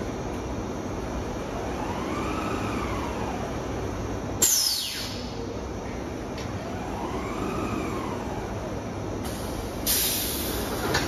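Automated yarn-cone palletizing line running with a steady machine hum. Twice a motor whine rises and falls in pitch as the gantry robot's axis speeds up and slows down. There is a sudden sharp sound with a quickly falling whine about four seconds in, and a burst of hiss near the end.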